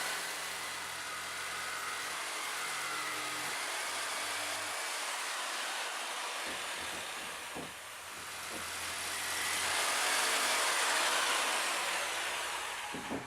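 An electric power tool running steadily with a loud, even whine-hiss, dipping briefly about eight seconds in and switched off right at the end.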